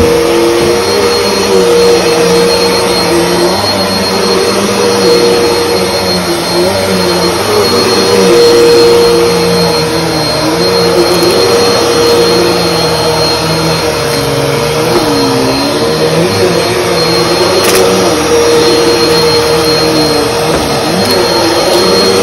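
Bissell PowerForce bagless upright vacuum cleaner running on carpet: a loud, steady motor whine with lower tones that waver up and down as it is worked.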